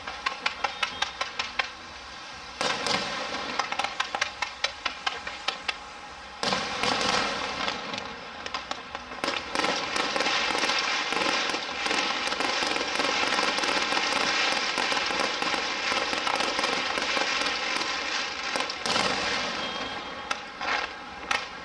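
Aerial fireworks going off: rapid runs of sharp pops for the first several seconds, then from about six seconds in a dense, continuous crackling that carries on almost to the end, with a few more separate pops near the end.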